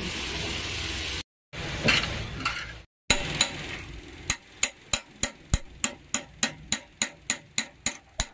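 Workshop noise cut off twice by short silences, then a steady run of sharp metallic taps, about four a second, each ringing briefly.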